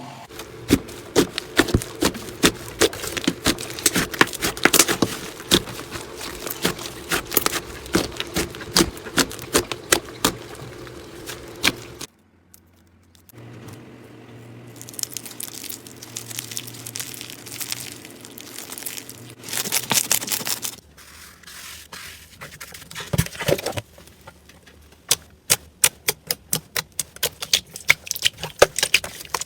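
Slime being squeezed, poked and pressed by hand, giving dense runs of crackling pops and clicks. The sound changes abruptly a few times, about twelve and twenty-one seconds in, as one slime gives way to another.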